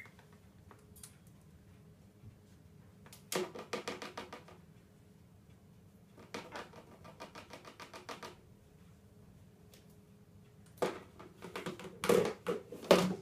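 A parrot's beak tapping and pecking rapidly at a plastic tub, in three runs of quick clicks about ten a second. The last run, near the end, is the loudest.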